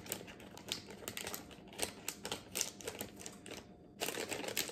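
Kitchen shears snipping through a plastic bag: a run of irregular crisp clicks and crinkles, densest near the end.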